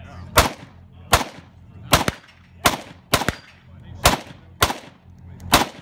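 Kalashnikov rifle fired as rapid single shots: about eight sharp cracks at an uneven pace, a half second to nearly a second apart, several followed at once by a fainter second crack.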